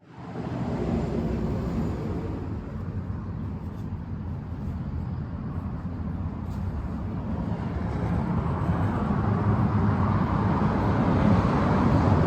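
Steady outdoor background rumble like road traffic, slowly growing louder toward the end.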